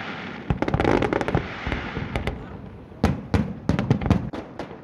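Fireworks display: aerial shells bursting in rapid volleys of sharp bangs over crackling, with a dense run of bangs about half a second in and another about three seconds in.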